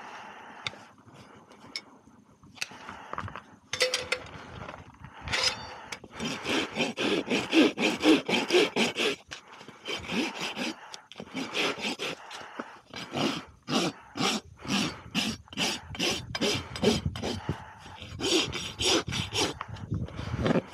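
Flat farrier's rasp filing a horse's hoof: rough, rasping strokes at about two a second, starting about six seconds in and running in short runs with brief pauses. Before that, a few scattered scrapes from handling the tool and hoof.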